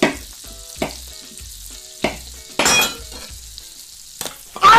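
Food sizzling and frying in a hot pan, a steady high hiss, with a few brief louder hits along the way. Quiet background music with a low beat about twice a second runs underneath.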